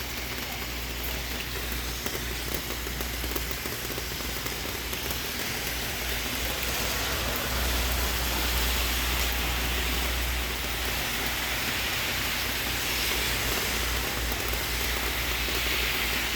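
Steady rain falling, a rushing hiss that grows a little louder about halfway through, with a low rumble underneath.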